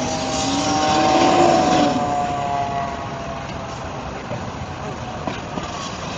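A passing road vehicle, its steady whine and engine note rising then falling as it goes by, fading about three seconds in to fainter traffic noise.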